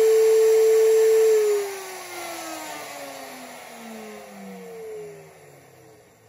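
Porter-Cable 690 router motor running with a loud, steady whine, then switched off about a second and a half in and spinning down, its pitch falling steadily as it coasts to a stop.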